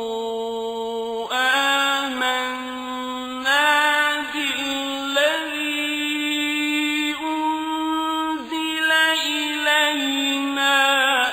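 Melodic Quran recitation by a male reciter in the drawn-out tajwid style: one voice holding long ornamented notes that step up and down in pitch, with quick melodic runs between them.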